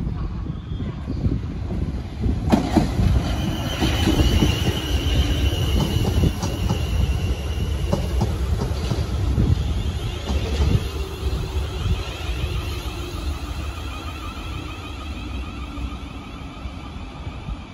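South Western Railway electric multiple unit passing close on the near line and rumbling on along the platform. Its wheels click over the rail joints, a high steady squeal is held for a few seconds, and a whine falls in pitch before the sound fades as the train moves away.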